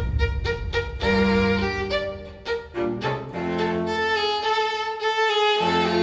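Music with a bowed fiddle playing a melody over held low bass notes.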